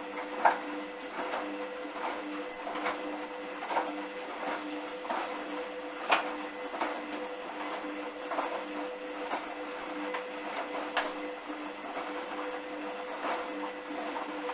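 Washing machine running a wash: a steady motor hum that pulses with the drum's turning, and a regular knock a little more than once a second.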